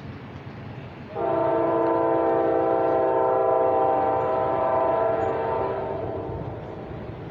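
Amtrak locomotive's air horn sounding one long, steady blast of about five seconds. It comes in suddenly about a second in and fades away: the warning for the grade crossing as the train approaches.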